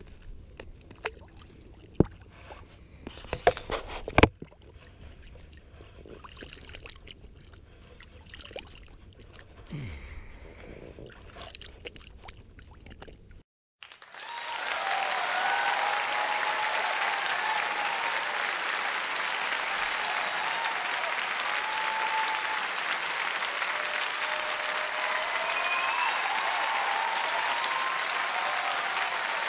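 Faint handling noise in a boat with a few sharp knocks. After a sudden cut about 14 seconds in, steady crowd applause takes over and is the loudest sound.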